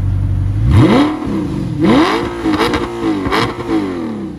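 Audi R8 engine idling, then revved in about four quick blips, each rising and falling in pitch, before dropping back toward idle near the end.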